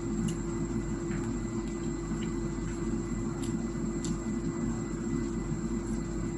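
A steady low machine hum with one constant tone, and a few faint clicks.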